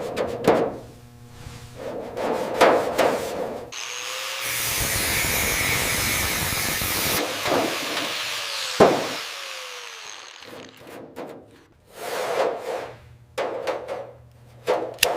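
Restoration workshop tool work: a series of short scraping strokes, then a power tool running steadily for about three seconds, a single sharp knock, and more scraping strokes near the end.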